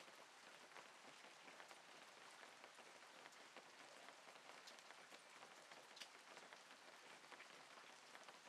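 Very quiet light rain pattering, with scattered faint drip ticks.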